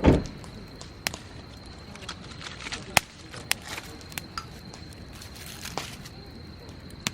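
A dull thump at the start, then a handful of scattered sharp clicks and taps over a steady high insect trill.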